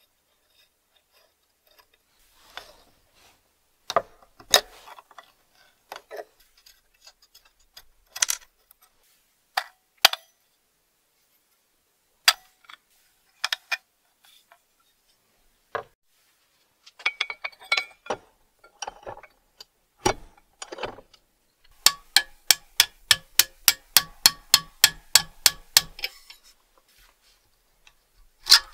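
Small metal parts of an antique car-battery tester clicking and clinking as it is handled and taken apart, scattered sharp taps with a quick, even run of metallic clicks, about four a second, past the middle, and a louder knock near the end.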